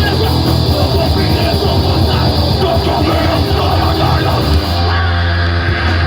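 Noisecore band playing live at full volume, a dense, chaotic wall of distorted guitar and drums. Near the end the cymbal wash drops out and a low distorted note is left ringing, as the song winds down.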